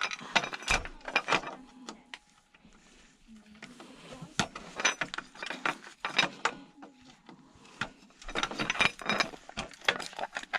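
Irregular metallic clicks, ratcheting and clatter from tools working at the heat sinks of an electronics unit being taken apart, coming in several clusters with short pauses between.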